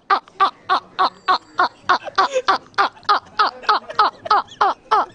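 A man laughing hard and uncontrollably in rapid, evenly spaced 'ha' bursts, about three to four a second, each dropping in pitch at its end.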